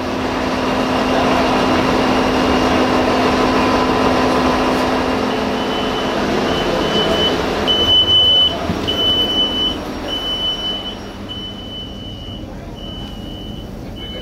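Diesel multiple unit heard from inside the passenger saloon: steady engine and machinery noise with a low hum, swelling over the first couple of seconds. From about halfway a high electronic warning beep starts repeating about once a second.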